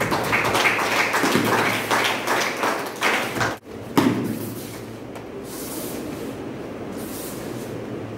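Bare feet thudding and tapping on a dojo mat as three karateka move through the Goju-ryu kata Seiunchin, with a sharp knock about four seconds in and steadier room noise after it.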